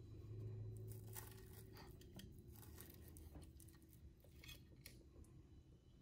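Faint crunching and scraping as a fork cuts through the crispy Parmesan-and-panko crust of an air-fried salmon fillet, a run of short crackles that thins out near the end.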